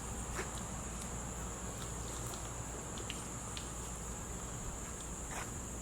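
Steady high-pitched drone of insects, with a few faint scattered clicks.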